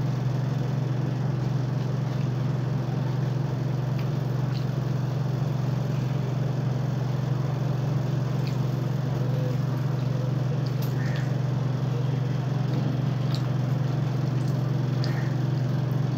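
A steady low hum, with a few faint small clicks as a piece of fried fish is picked at and eaten by hand.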